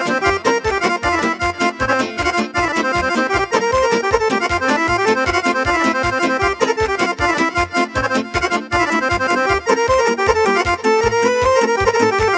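Romanian party music played instrumentally: an accordion carries a busy lead melody over a fast, steady beat, with no singing.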